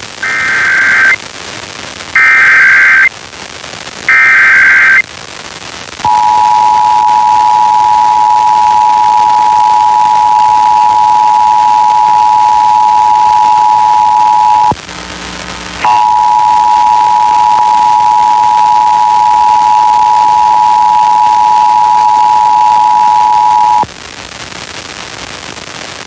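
Emergency Alert System test received over FM radio: three separate bursts of the SAME header's data tones about a second apart, then the EAS two-tone attention signal (853 and 960 Hz sounded together) held steady for about eight seconds. It breaks off for about a second, then resumes for about eight seconds more, over a steady radio hiss.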